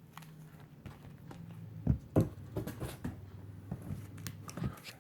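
Comic books being handled and swapped: a string of light rustles and taps, the two loudest a little before and after two seconds in, over a faint low hum.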